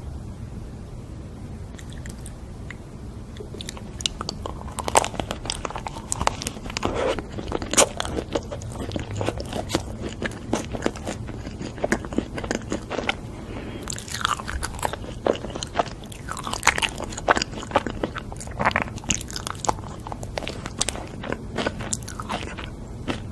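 Close-miked eating sounds: a person chewing and biting food, with irregular sharp wet mouth clicks and smacks that start about four seconds in.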